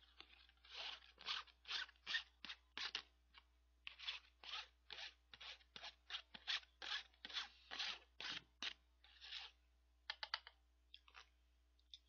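Foil-backed paper lid of an instant cup crinkling and scraping against chopsticks in a quick series of short strokes, about two a second. They thin to a few scattered clicks near the end.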